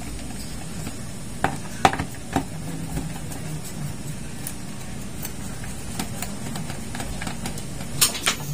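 Hands handling an air conditioner's metal electrical box and its wiring and plastic parts: light clicks and ticks, with three sharper clicks about two seconds in and a few knocks near the end, over a steady low hum.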